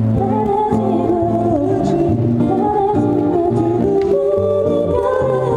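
Live song by a student band: a singer into a microphone over strummed acoustic guitars, with a melody line over changing bass notes.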